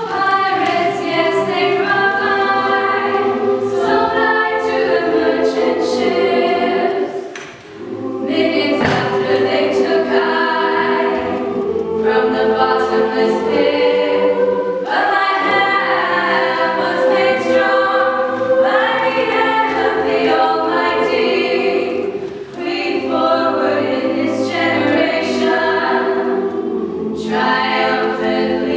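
Mixed-voice choir of young men and women singing a cappella in several parts, with brief dips between phrases.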